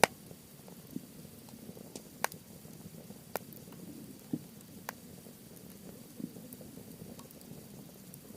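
Wood fire of softwood and hardwood burning in a metal fire stand: a low steady crackle with sharp pops, a loud one at the very start and a few more about two, three and a half and five seconds in.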